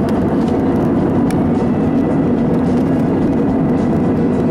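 Steady cabin roar of an Airbus A320 in flight, heard by the window over the wing: an even rush of engine and airflow noise with faint steady tones in it.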